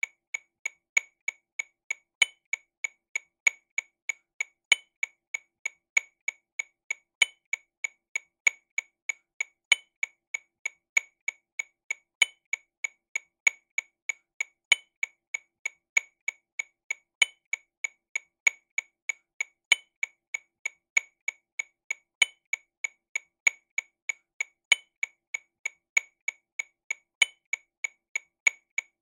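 TAMA RW200 Rhythm Watch metronome clicking sixteenth notes at 48 BPM, about three short clicks a second, with a louder, brighter accent click at the start of each beat.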